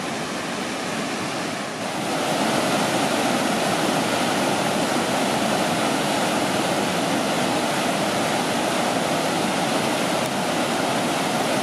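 Water rushing over the Werra river weir in a steady roar of white water. It gets louder about two seconds in.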